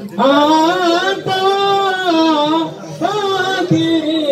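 A single high voice chanting an unaccompanied mawlid devotional melody, holding long notes that waver and slide in pitch. One phrase, a short break about two and a half seconds in, then a second phrase.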